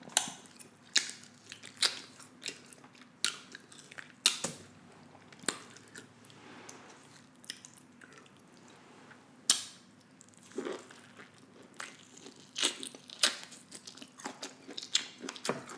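Close-miked chewing of steak: irregular wet mouth clicks and lip smacks, about one or two a second, the loudest near the middle.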